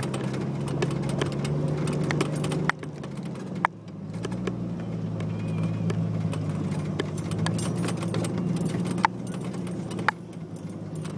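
An off-road vehicle's engine running at low speed, heard from inside the cab, with scattered knocks and rattles as it rolls over rough dirt. The engine note drops lower about four seconds in.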